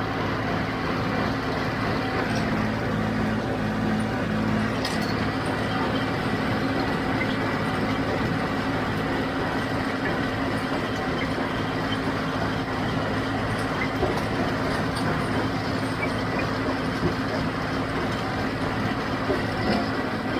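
John Deere 5055D tractor's diesel engine and John Deere 348 square baler running together at a steady working speed: an even engine drone with the baler's machinery noise.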